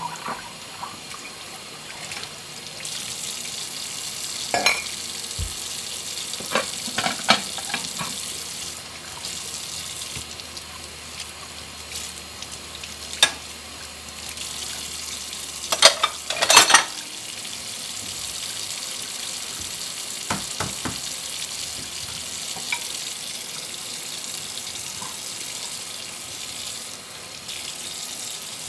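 Dishes being washed by hand at a kitchen sink: a steady hiss of running water and scrubbing, with sharp clinks of dishes knocking together now and then, loudest in a cluster about halfway through.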